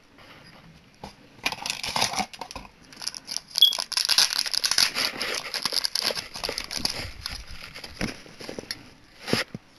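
Shiny foil wrapper of a can badge crinkling and rustling as hands handle it, with a short click near the end.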